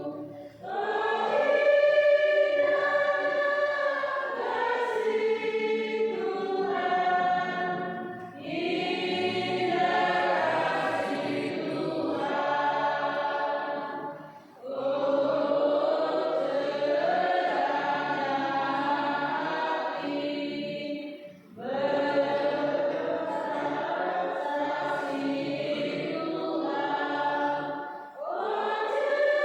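Church choir singing together in long held phrases, with brief pauses for breath about every seven seconds.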